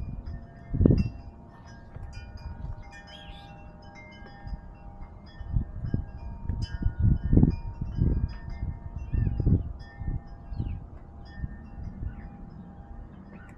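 Wind chimes ringing: many overlapping ringing tones at different pitches. Irregular low thumps and rumbles run under them, loudest about a second in and again from about five and a half to nine and a half seconds in.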